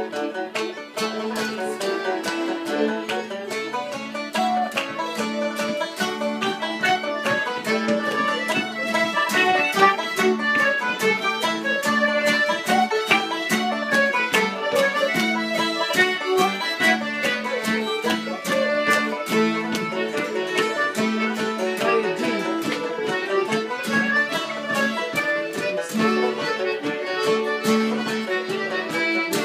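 Live acoustic session ensemble playing a tune together with a steady beat: several fiddles bowing the melody, with a banjo, a strummed acoustic guitar, a squeezebox and a bodhrán frame drum beaten with a stick.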